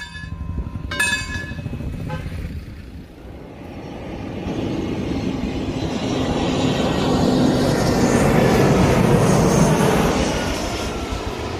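Two short ringing strikes at the start, then a Citilink jet airliner taking off, its engine noise swelling to a peak about two-thirds of the way through and easing off near the end.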